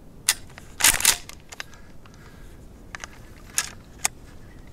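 Handling noise close to the microphone: scattered sharp clicks and crackles, loudest in a brief cluster about a second in, with a few more near the end.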